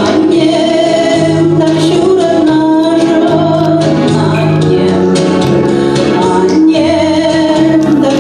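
A woman singing a Chuvash-language song into a microphone, over an instrumental accompaniment with a steady bass line.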